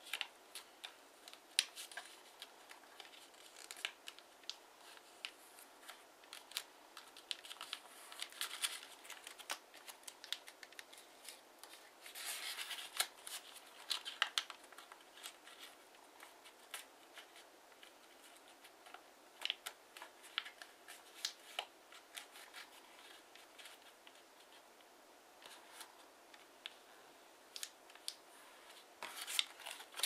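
Sheet of 15 cm origami paper being folded and creased by hand: faint, scattered crisp rustles and clicks, with a few longer rustles where the paper is worked harder.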